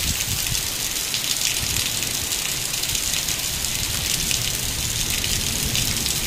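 Heavy rain pouring down steadily, a dense even hiss of falling drops.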